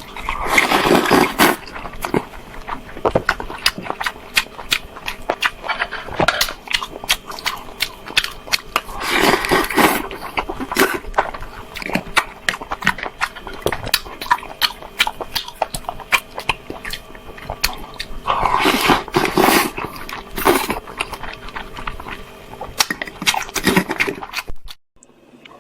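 Close-miked chewing and mouth noises of a person eating, with dense irregular wet smacks and crunchy clicks. Longer, louder bursts of about a second come near the start, around nine seconds in and around nineteen seconds in. The sound cuts off abruptly about a second before the end.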